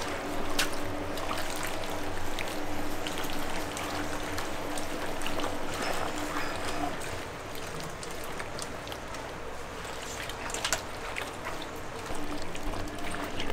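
Rubber-gloved hands mixing raw chicken feet with chili powder and a wet sauce in a stainless steel bowl: continuous wet squelching with scattered small clicks as the feet knock together and against the bowl.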